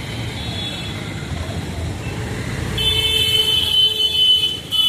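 Steady rumble of road traffic with a vehicle horn honking: a long, high-pitched blast starting about three seconds in, a brief break, then a second blast at the end.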